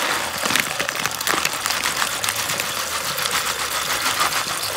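Dry soybeans pouring from a plastic bag into a bucket of water: a dense, rapid pattering of many small hard beans hitting the water.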